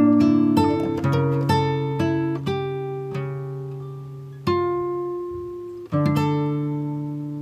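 Acoustic guitar music: picked notes, then chords struck about four and a half and six seconds in, each left to ring and fade.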